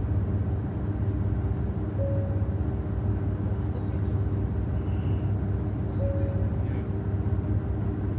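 Steady low drone inside a JR Shikoku 2700 series diesel railcar, with its engine running. A short faint tone comes twice, about four seconds apart.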